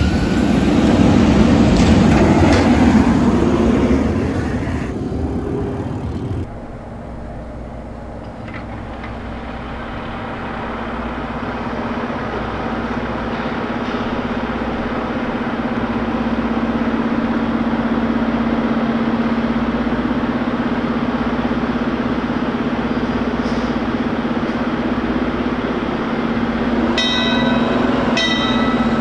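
A fire engine's diesel engine idling in its station bay with a steady low rumble and hum that builds as it gets ready to pull out, with brief ringing tones near the end. Before that, for the first few seconds, there is traffic noise and the tail of a passing emergency vehicle's siren.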